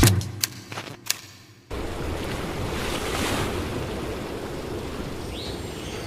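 Music ends on a few sharp percussive hits, then cuts to a steady wash of ocean surf that swells a little over a second later.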